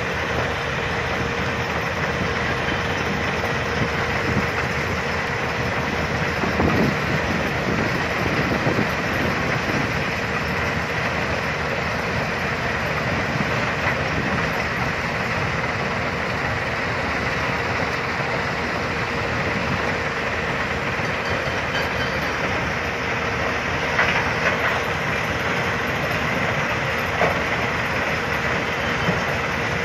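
Tracked mobile crusher running and crushing demolition rubble fed by an excavator. It makes a continuous din with a steady hum running through it, broken by a few sharp knocks, the loudest about 24 seconds in.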